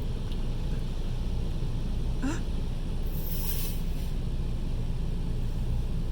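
Steady low rumble inside a car going through an automatic car wash, with a brief rising squeal about two seconds in and a short high hiss a second later.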